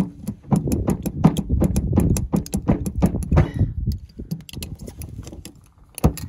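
Utility knife blade sawing through a heavyweight rubber truck bed mat: a dense run of irregular sharp clicks and scrapes that thins out about four seconds in, with one sharper click near the end.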